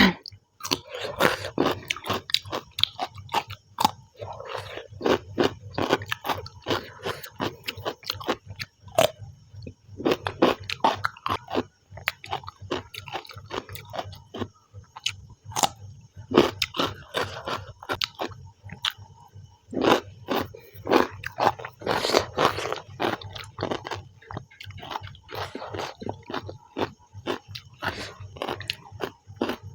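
Close-miked chewing and biting of a meal of rice and chicken: a steady run of irregular wet mouth clicks and smacks, with no talking.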